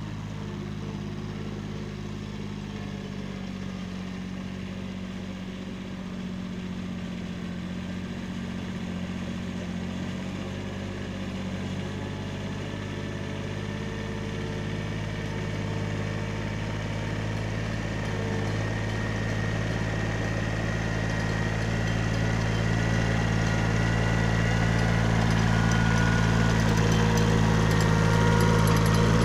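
Kubota B7100 compact tractor's small three-cylinder diesel engine running steadily while pulling a drag box, growing steadily louder as the tractor comes closer and passes close by near the end.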